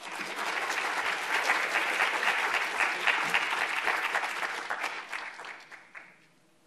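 Audience applauding after a talk, starting at once, holding for about five seconds, then fading out.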